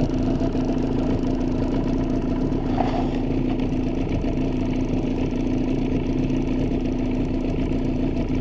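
Boat's outboard motor running steadily at trolling speed, a constant low drone with a steady hum.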